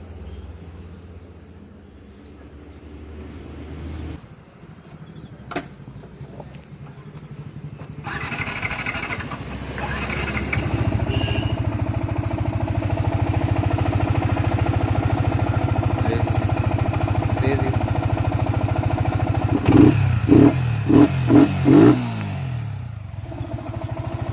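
Yamaha R15 V3 motorcycle's 155 cc single-cylinder engine starting about a third of the way in and idling steadily. Near the end it gets four quick throttle blips, then drops back to idle. The bike was brought in for an engine crackling noise.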